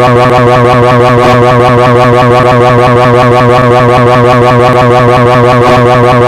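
Pocoyo's 'jrarararara' scream sound effect: a cartoon voice held in one continuous rolling, warbling scream, fluttering several times a second. It is very loud and steady, with no breaks.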